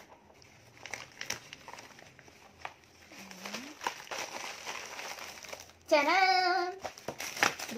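A padded mailer being pulled open and plastic-wrapped items drawn out of it: irregular crinkling and rustling of paper and plastic packaging. About six seconds in comes a short, louder voiced sound with a rising pitch, the loudest moment.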